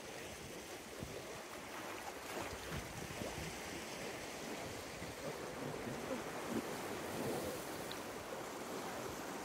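Sea waves washing and breaking against shoreline rocks, a steady rushing wash.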